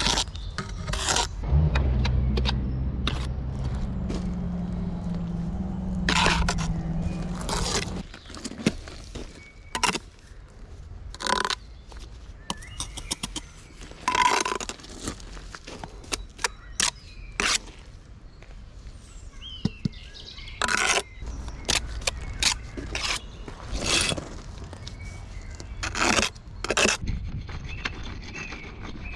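Bricklaying trowel work: a steel trowel makes repeated short scrapes and taps on mortar and brick at irregular intervals. A low steady drone runs under it for the first several seconds and then stops.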